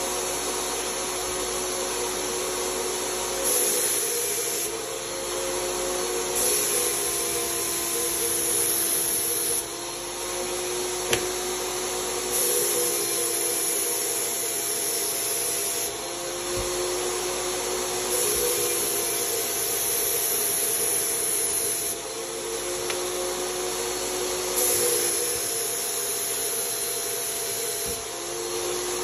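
HVLP turbine paint sprayer running with a steady whine, while the spray gun is triggered on and off repeatedly. Each pass lasts one to four seconds and adds a hiss of air and atomised paint.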